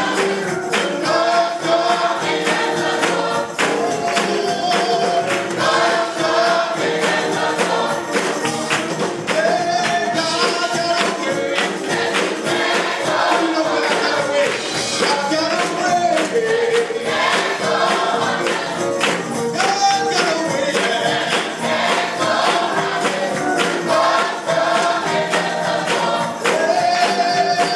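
Gospel choir singing, with a tambourine keeping time.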